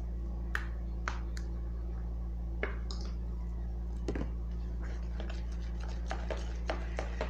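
Scattered light clicks and taps from glue being added to a slime mixture and stirred in a container, over a steady low electrical hum.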